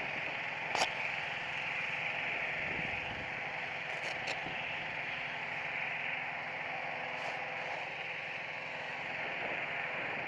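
Engine-driven inflator fan running steadily, blowing air into a hot air balloon envelope during cold inflation, with a brief click about a second in.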